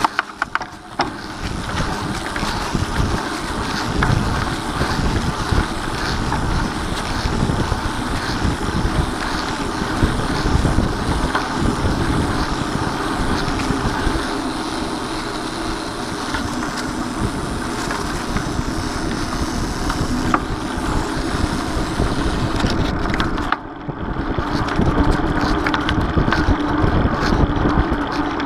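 Mountain bike rolling along a trail, its tyres running over leaf litter and pavement, while wind buffets the camera's microphone. After a brief dip near the end, a low steady hum comes in.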